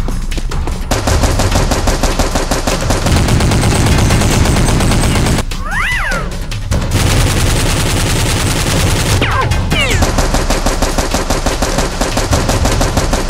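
Rapid automatic gunfire sound effects in long sustained bursts over background music, easing off briefly about halfway. Two short whistling glides cut through the fire, around six and nine seconds in.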